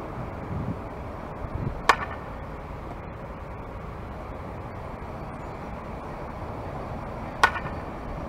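Softball bat striking a pitched softball twice, about five and a half seconds apart, each a sharp crack with a short ring, over steady outdoor background noise.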